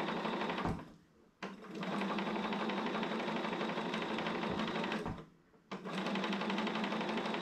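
Electric sewing machine stitching a seam at a fast, even rate. It slows and stops about a second in, runs again, then pauses briefly about five seconds in before starting up again.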